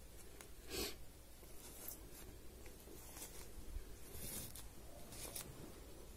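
Faint rustling and crinkling of a detox foot patch and its paper-backed adhesive tape being folded and peeled by hand, in a few short rustles, the loudest about a second in.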